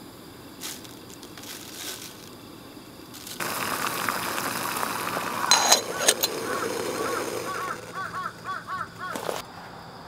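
A canister gas stove's burner hisses steadily under an aluminium camping kettle, then metal clinks as the kettle is lifted, and hot water glugs out of it as it is poured.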